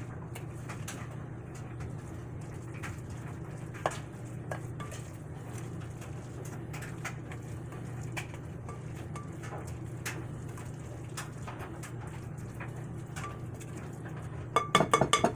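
A utensil stirring potato pancake batter in a mixing bowl, with scattered light clicks over a steady low hum. Near the end comes a quick run of loud clinks of utensil against bowl.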